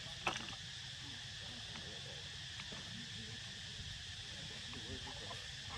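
Steady outdoor ambience with a constant high insect drone, broken by one short sharp sound shortly after the start and a few faint short squeaks near the end.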